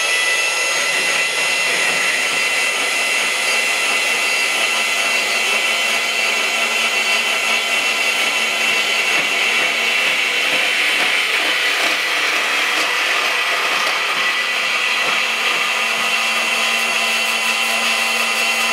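Cordless portable band saw cutting through thin-wall chromoly steel tube in one long continuous cut: a steady motor whine with the blade rasping through the metal.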